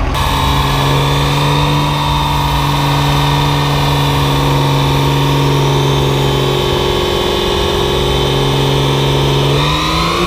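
Diesel pickup engine running hard under load on a chassis dyno, held at a steady pitch with a high whine above it, then climbing in pitch just before the end.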